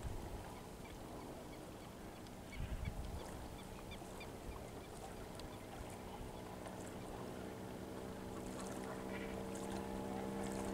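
A steady motor hum that grows slowly louder through the second half, over low wind rumble, with a few faint high bird chirps early on.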